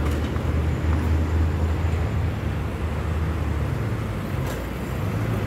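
City road traffic: a car driving past close by, then the steady engine and tyre noise of motorcycles and other vehicles coming along the road.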